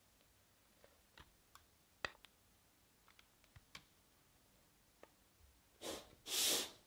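Faint clicks and taps of a silicone spatula against a glass mixing bowl and cake pan as thick cake batter is scraped out and spread. Near the end come two short hissing swishes, the second louder.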